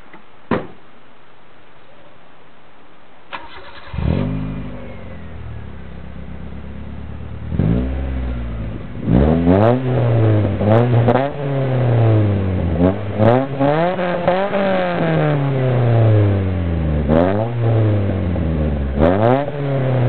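A 1995 Mazda MX-3's 1.6-litre four-cylinder, heard at the tailpipe through an aftermarket Ractive exhaust with header, high-flow cat and the resonator removed. After a click near the start, it is cranked and fires about four seconds in, idles, and from about eight seconds on is revved again and again in quick blips: a low grumble.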